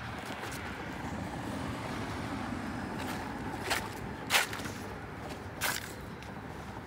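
A car driving past on the road, its running and tyre noise swelling and then easing off. Three sharp clicks sound in the second half, the loudest a little past halfway.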